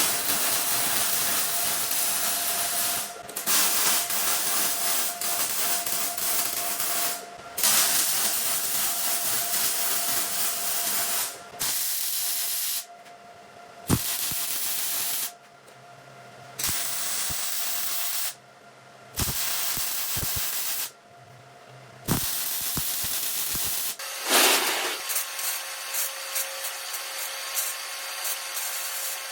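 Electric arc welding: a loud crackling hiss in about nine bursts of one to four seconds, stopping and starting with short breaks between, as steel tube is tack-welded onto a steel plate.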